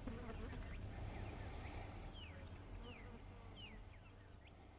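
Outdoor ambience of insects buzzing, with a bird giving three or four short falling chirps partway through, the whole fading gradually down.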